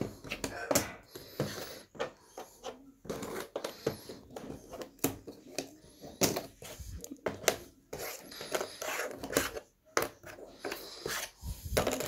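Cardboard jigsaw puzzle pieces being handled on a tabletop: irregular clicks, taps and light scrapes as they are picked up, slid and set down.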